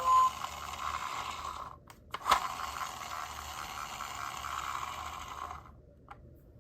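A toy minicar's small plastic gear mechanism whirring and rattling, with a brief break and a sharp click about two seconds in, then running on until it stops a little before the end.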